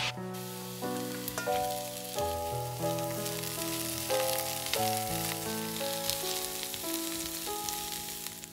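Sliced onions and garlic cloves sizzling in olive oil in a frying pan, a steady hiss that cuts off suddenly at the end, with a spatula stirring them. Background music plays throughout.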